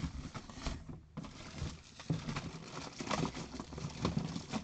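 Handling noise from hands on paper catalogs: an irregular patter of light taps and rustles, sparse at first and much denser from about halfway.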